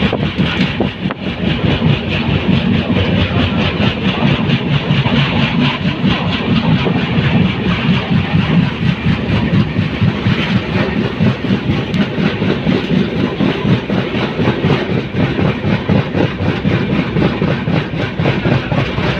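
Steady running noise of a passenger train, continuous and unbroken.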